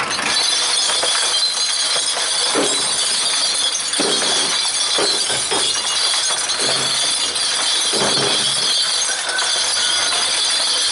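Portable cement mixer tumbling a drum full of empty beer bottles with a few heavy rocks: glass clinks and smashes continuously, with heavier crashes about once a second as the rocks crack and break the bottles.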